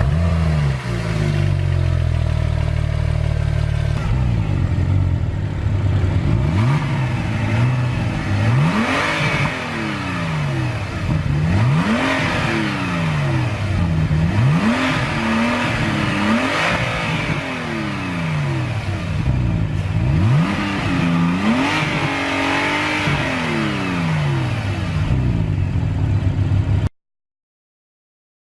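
Porsche 911 Turbo twin-turbo flat-six running at a steady idle just after starting, then free-revved in about ten quick blips, each rising and falling in pitch. The sound cuts off suddenly near the end.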